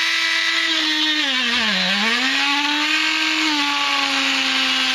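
Dremel rotary tool running at a steady high whine, its bit boring through a baseball cap's fabric to widen a hole. About two seconds in the pitch sags as the bit loads up, then recovers.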